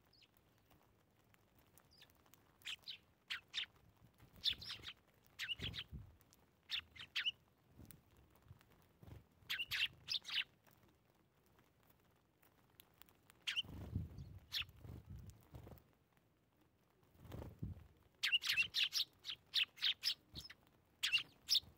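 Eurasian tree sparrows chirping in short bouts of quick, high calls, with a dense flurry of chirps near the end. A few soft low thumps sound between the bouts.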